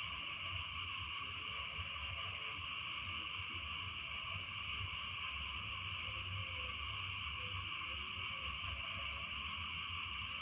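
Night chorus of frogs and insects after rain: a dense, unbroken trilling with a few faint separate calls over it from the middle on, and a low rumble underneath.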